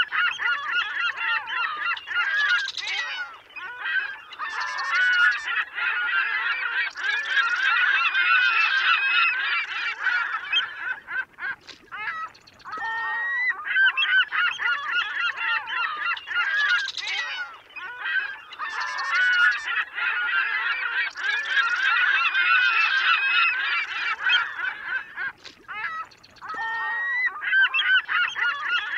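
A large flock of birds calling over one another in a dense chorus. It breaks off briefly twice, near the middle and near the end.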